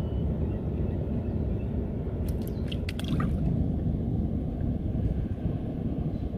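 Steady low rumble of wind on the microphone and water lapping at a wooden canoe, with a few light clicks a little past two seconds in.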